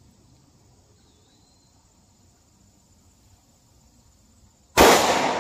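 Faint steady background, then near the end a single .45 ACP pistol shot (Federal Syntech Defense fired from a 3-inch barrel): a sudden loud crack whose echo dies away slowly.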